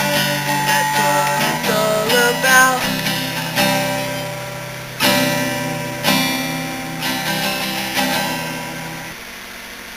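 Acoustic guitar strummed, with a wordless voice carrying a wavering melody over it for the first two or three seconds. After that come single chords about once a second, each left ringing and fading, until the playing dies away near the end.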